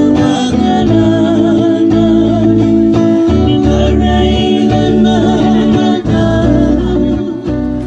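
A group of men singing together to strummed acoustic guitars.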